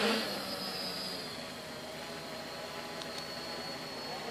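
Quadcopter's electric motors and propellers humming steadily as it hovers, holding altitude and position, over a steady hiss. A brief louder swell comes right at the start and a short rise in pitch near the end.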